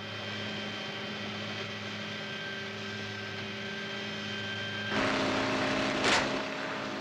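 Helicopter engine and rotor noise with a steady whine. About five seconds in it turns louder with a different pitch, and a second later a brief loud whoosh as the helicopter swoops low over the car.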